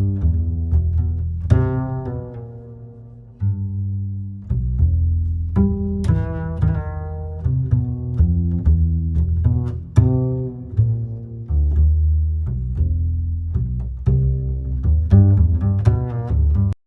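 Background music led by plucked low strings in a bouncy pizzicato line, which stops abruptly near the end.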